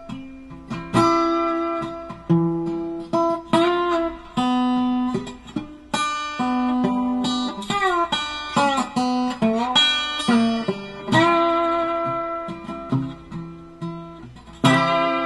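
Background music: acoustic guitar playing plucked notes, some of them bending or sliding in pitch.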